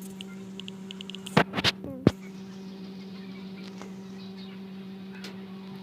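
Steady low hum, with a few sharp clicks about a second and a half in.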